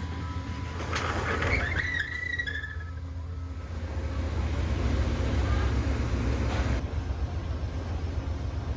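Steady low rumble of a moving vehicle, swelling louder partway through, with a brief higher wavering sound about a second and a half in.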